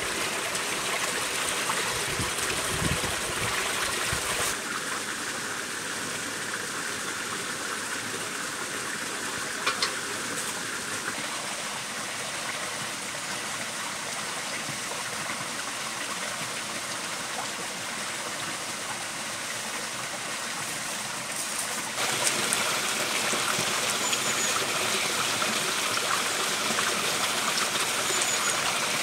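Steady rush of running water from a stream, quieter from about four seconds in and louder again about 22 seconds in.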